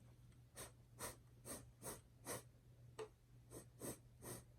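Faint, short puffs of breath blown through a drinking straw to push wet acrylic paint across a tile in a Dutch pour, about two puffs a second. There is a single sharp click about three seconds in.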